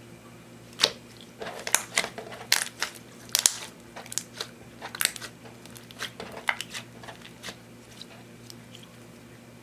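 Slime being squeezed and worked by hand, giving off a run of irregular crackling pops and clicks that are densest in the first half and thin out toward the end.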